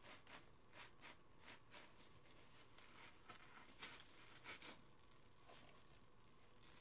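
Faint, soft squishing and swishing of thick soap foam, a few short swishes spread through, as gloved hands squeeze a sponge and stir the suds.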